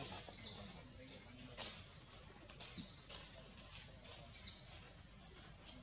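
High-pitched short chirps, about six spread over the few seconds, each a quick slide in pitch, over faint rustling.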